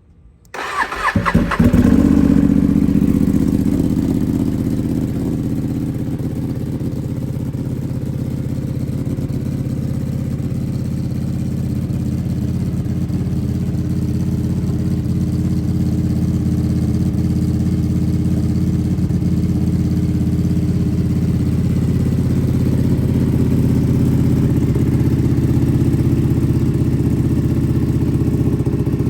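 Ducati Panigale V2's 955 cc L-twin, fitted with a Vandemon aftermarket exhaust, cold-started. The starter cranks briefly, the engine catches about a second and a half in with a loud burst, and it settles into a steady idle.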